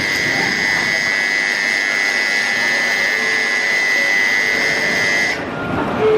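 Shinkansen platform departure warning signal: a steady, high electronic tone that sounds for about five seconds while the platform screen doors close, then cuts off abruptly. A lower tone begins right at the end.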